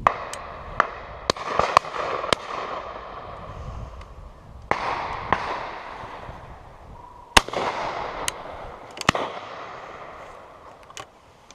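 Shotguns firing from a line of guns on a driven pheasant shoot: about a dozen shots at irregular intervals, some close and sharp, others fainter and farther off. Each shot is followed by a rolling echo.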